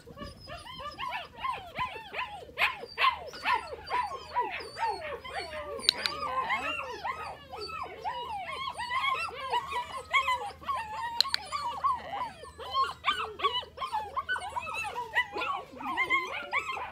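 Eight-week-old puppies whining and yipping in a near-continuous stream of short, high calls that bend up and down in pitch, often overlapping.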